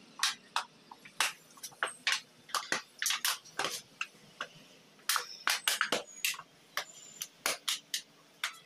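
Thin plastic bottles crinkling and crackling in irregular sharp clicks, a few a second, as their walls flex.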